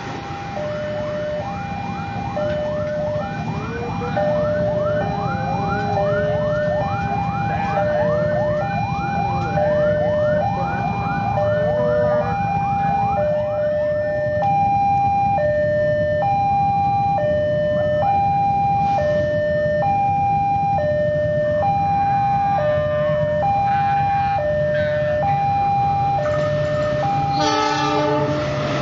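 Railway level-crossing alarm: an electronic warning of a high and a low tone alternating about once a second, sounding steadily over a low engine rumble. During the first half a rising chirping tone repeats about twice a second. Near the end an approaching diesel locomotive sounds a brief horn blast.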